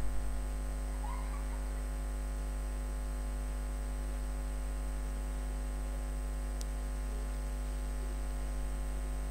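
Steady electrical mains hum with a faint high-pitched whine, the background noise of the recording chain, at a moderate level. There is a faint short chirp about a second in and a single faint tick a little past the middle.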